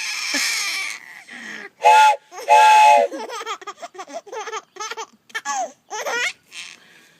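A train whistle blown: a breathy hiss, then two loud, steady chord-like toots. A baby then laughs in a quick run of short giggles.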